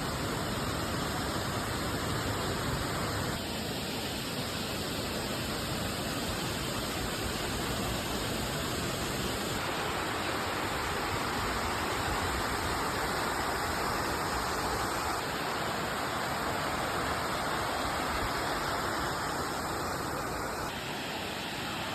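Fukiware Falls' water rushing and pouring steadily, a dense continuous roar of falling water whose tone shifts abruptly a few times.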